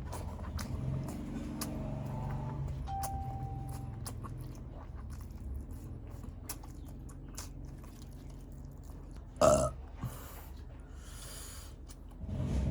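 A single loud burp about nine and a half seconds in, over a steady low hum and faint scattered clicks.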